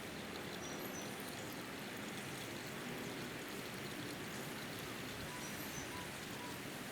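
Brake fluid running steadily out of an opened caliper bleeder valve into a drain hose, pushed by a pressure bleeder: an even trickling hiss.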